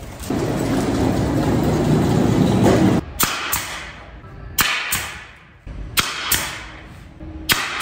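A steady, loud machine noise for about three seconds, then a pneumatic nail gun firing into a panel: sharp shots in quick pairs, four pairs about a second and a half apart.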